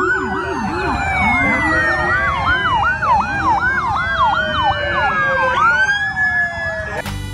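Several police vehicle sirens sounding at once. A fast yelp sweeps up and down about two to three times a second, over slower wails that glide up and down over several seconds.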